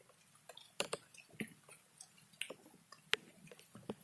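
Scattered light clicks and taps at irregular intervals, the sharpest about three seconds in.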